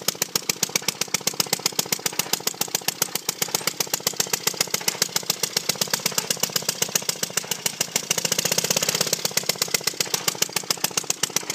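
Circa-1920 Merry Garden Auto Cultivator's two-horsepower, water-cooled two-stroke Evinrude engine running, firing as a rapid, even string of sharp pops. About eight seconds in, the pops run together in a brief louder stretch.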